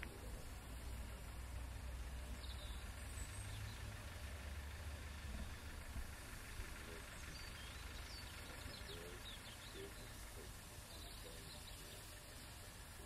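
Low rumble of the Bulleid rebuilt West Country class Pacific steam locomotive 34027 Taw Valley moving away, fading gradually, with small birds chirping in the middle.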